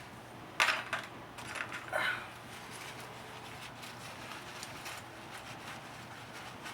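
A few short clinks and scrapes of small brake hardware being handled, three within the first two seconds, then only low background.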